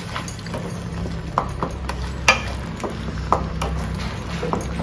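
A flat spatula stirring and scraping thick masala paste in a metal kadai, clicking against the pan at irregular intervals over a steady low hum. The masala is being fried until its oil separates.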